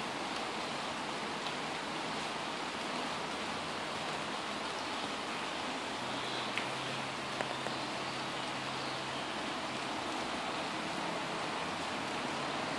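Steady rain falling on tree foliage, an even hiss with a few louder single drops about halfway through.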